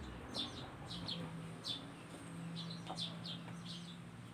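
Small birds chirping in the background: about ten short, high, downward-sliding chirps at irregular intervals, over a faint steady low hum.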